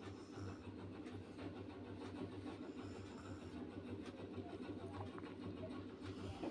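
Faint stirring of a frying halwa mixture (roasted turmeric, ginger and ground raisins) in a pan, with a few light scrapes of the spatula over a steady low hum.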